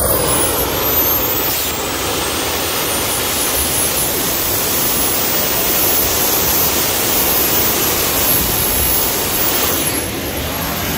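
Three small jet engines running together: a loud, steady rush of exhaust with a high turbine whine that rises in pitch in the first second or two, then holds, easing slightly near the end.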